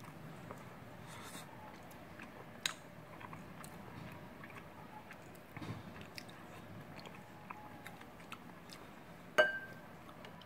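Someone eating: soft chewing and small mouth and spoon sounds. A spoon knocks against the bowl twice, a light tap early and a sharper clink about nine seconds in that rings briefly.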